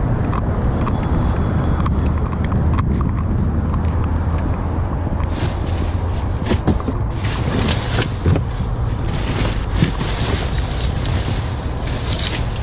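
Steady low rumble of road traffic, joined about five seconds in by a crackling hiss with small clicks.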